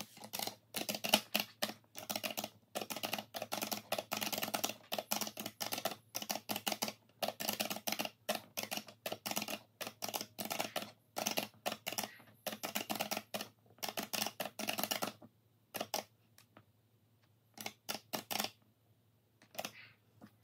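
Keys of a desktop calculator pressed in quick runs of clicks, adding up a column of figures. The presses thin out to a few scattered clicks about fifteen seconds in.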